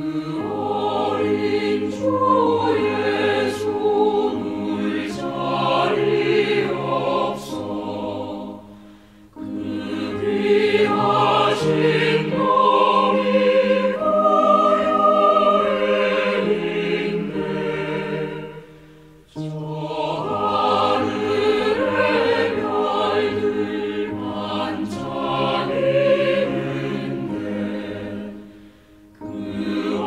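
Choir singing a Christmas carol, in phrases of about ten seconds with brief breaks between them.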